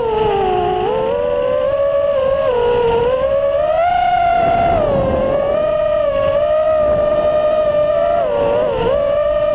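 4S (four-cell) 5-inch FPV racing quadcopter's brushless motors and propellers whining, heard close from its onboard camera, the pitch rising and falling with throttle. The pitch climbs about four seconds in, with a rougher rumble under it, and dips briefly near the end.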